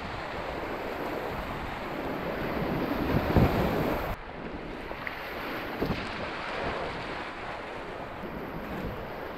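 Whitewater rapids rushing around a kayak, heard from a helmet camera, with water splashing over the bow and wind on the microphone. The noise swells to a louder splash about three seconds in, then turns suddenly duller about a second later.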